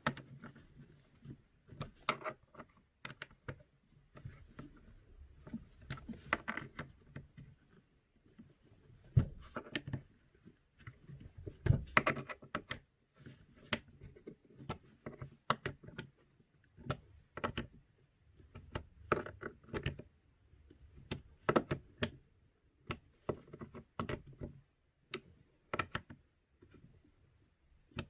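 Scattered small clicks, taps and knocks of an Allen key and metal parts being handled while the screws of an airsoft rifle's hop-up chamber are tightened one by one, in an irregular pattern.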